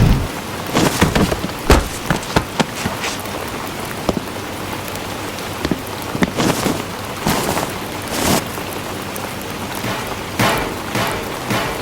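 Steady rain-like hiss with scattered light taps, and several short louder bursts of noise in the second half.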